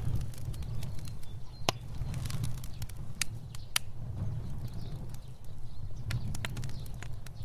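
Fire burning: a steady low rumble of flames with scattered sharp crackles and pops, a few louder pops standing out around two, three and four seconds in.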